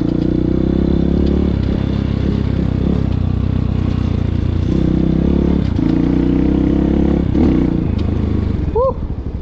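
Budget 250cc dirt bike engine running while being ridden, its pitch rising and falling several times as the throttle is opened and closed.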